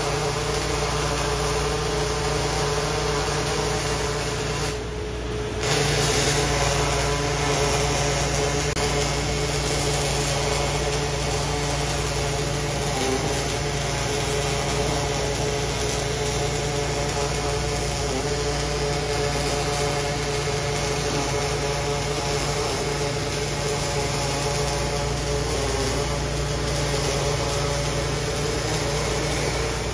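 Robotic arc-welding torch welding a clamped plate: a steady arc hiss and buzz over a steady machine hum. Near five seconds in the hiss drops out for about a second and then resumes.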